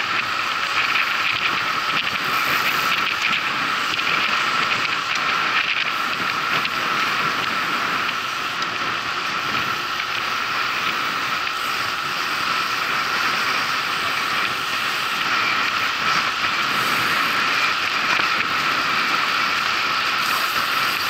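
Bicycle on the move: a steady rush of tyre and wind noise with rapid mechanical ticking, typical of a freewheel while coasting.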